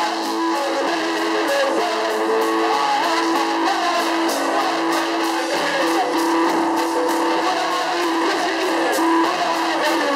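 Live band music with electric guitar to the fore over a steady beat, sounding thin with little bass.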